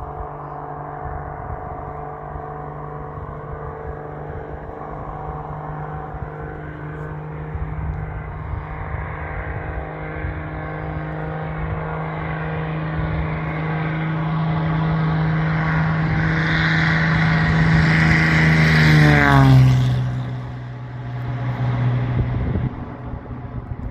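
Cessna 206 single-engine airplane at takeoff power: the six-cylinder piston engine and propeller drone steadily and grow louder as it approaches, then pass close about nineteen seconds in with a sharp drop in pitch and fade away.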